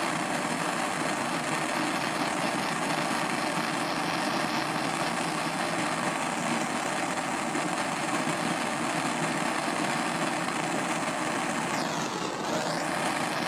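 Propane torch burning with a steady hiss while its flame heats small steel gun screws to a blue-black oxide finish. Near the end the hiss briefly changes tone as the flame is swept off the screw.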